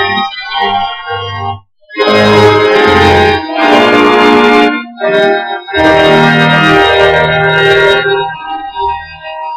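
Two-manual church organ playing held chords, with a brief break about a second and a half in, then loud full chords before the playing softens near the end.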